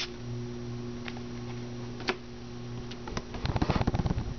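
Baseball cards being handled and flipped: a few separate light clicks, then a quick run of rapid ticking and snapping near the end as cards are flicked through, over a steady low hum.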